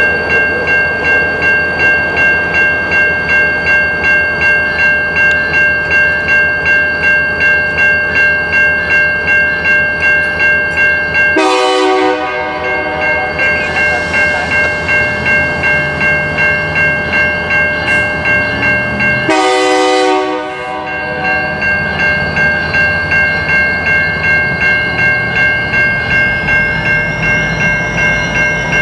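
A railway grade-crossing bell rings steadily about twice a second. The BNSF diesel locomotives' horn sounds two blasts of about a second each, some eight seconds apart, over the low rumble of the engines as the train moves slowly through the crossing.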